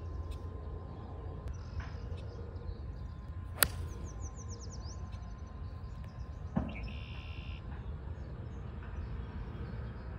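A 3-iron striking a golf ball off the tee: a single sharp crack about three and a half seconds in, hit a little high on the clubface. A steady low rumble runs underneath, and birds chirp briefly just after the strike.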